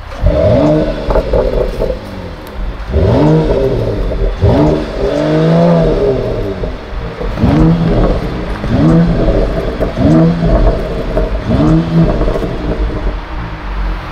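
Mercedes-AMG E53's 3.0-litre inline-six with EQ Boost, standing still and revved in about eight short blips through its quad-tailpipe exhaust. Each blip rises and falls back to idle, with crackles on the overrun.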